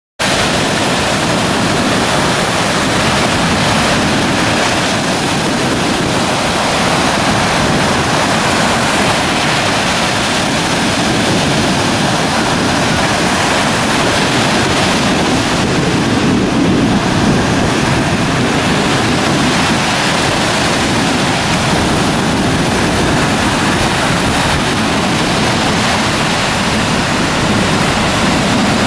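Waves breaking on a sandy beach: a continuous, loud rushing of surf.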